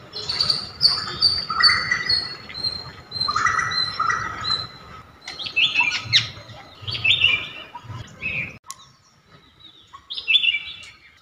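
Birds chirping and calling. A run of short, falling whistled notes gives way to quicker, busier chirps. It turns quieter about three-quarters of the way in, then a few more chirps follow.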